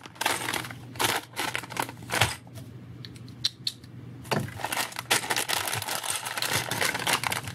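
Thin plastic parts bags being slit with a knife and handled, crinkling, with scattered clicks of small plastic building pieces tipping out, quieter for a moment in the middle.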